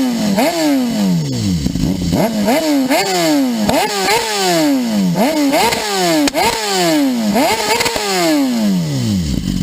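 Sportbike engine with an aftermarket exhaust being revved hard again and again, about once a second: each rev climbs quickly and falls back slowly. It settles to idle near the end.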